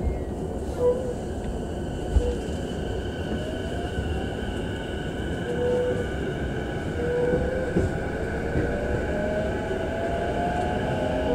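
JR E233-5000 series electric train heard from inside the car as it pulls away from a station: the traction motors' inverter whine rises in pitch as the train accelerates, over steady running rumble, with a single thump about two seconds in.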